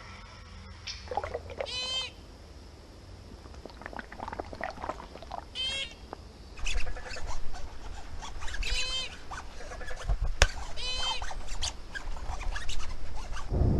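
House gecko calls: four short bursts of rapid chirps, with scattered clicks and taps between them.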